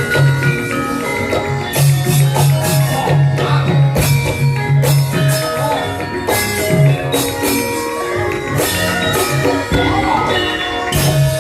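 Javanese gamelan music playing: struck metallophone tones over a repeating low note, with sharp percussion strokes throughout.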